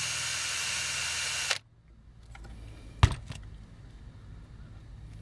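Small electric drill running at speed as it bores out a metal rivet, stopping abruptly about a second and a half in. A sharp click and a softer one follow about a second later.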